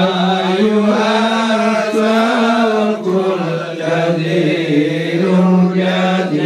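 Voices chanting in long held notes that slide slowly from one pitch to the next.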